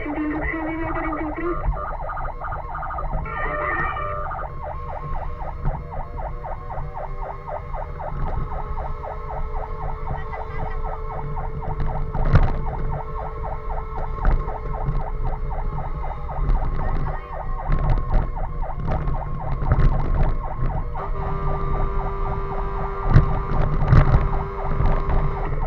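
Fire engine siren sounding a fast, pulsing cry over the steady rumble of the engine and road, with a held lower tone for long stretches and a few sharp knocks.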